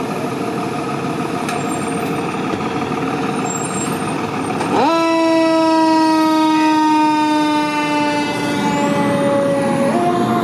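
A 2003 Pierce Enforcer fire engine's diesel engine runs as the truck pulls out. About five seconds in, its Federal Q2B mechanical siren spins up quickly and then winds slowly down in pitch. Near the end the siren's pitch jumps up again as it is wound back up.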